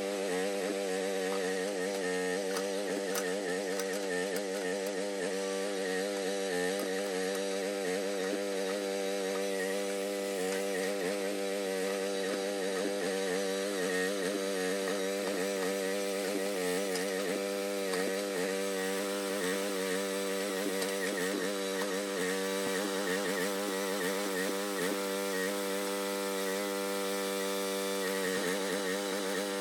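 Groundhog mini excavator's small engine running steadily at speed, a constant drone whose pitch wavers slightly throughout.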